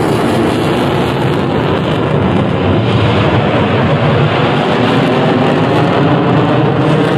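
Dassault Rafale fighter jet flying past with its twin turbofan engines in afterburner: loud, steady jet noise that holds at about the same level throughout.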